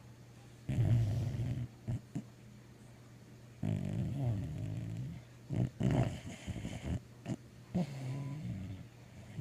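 Sleeping mixed-breed dog dreaming, making muffled growling and snoring sounds that come in bursts of about a second, several times over, with quieter pauses between them.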